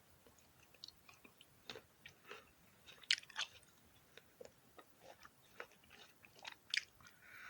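Close-miked biting and chewing of crisp black sapphire grapes: irregular crunchy snaps and wet crackles, loudest about three seconds in and again near the end.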